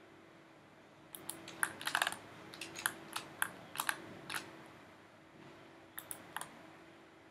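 Clicks and taps from a computer keyboard and mouse: a quick, irregular run of clicks from about a second in to about four and a half seconds, and a few more near six seconds, over a faint steady hum.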